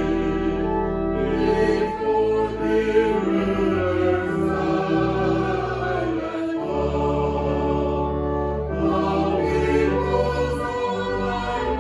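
Choir singing a hymn with accompaniment: long held chords over a deep bass line, changing every couple of seconds.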